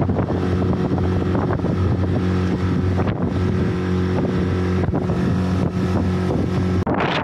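Small boat's motor running at a steady speed while under way, with wind buffeting the microphone; the motor sound stops abruptly near the end.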